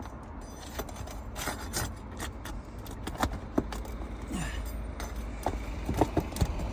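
Asphalt roof shingles being pried and worked loose: scattered crunches, cracks and scrapes. The shingles are brittle and breaking around the nails.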